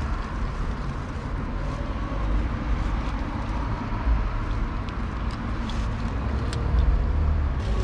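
Steady low rumble of street traffic, with a few faint crisp clicks of a cat crunching dry kibble.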